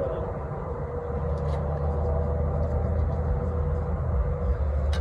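Steady low engine-like drone with a steady hum above it, and a few faint clicks, then one sharp metallic click near the end.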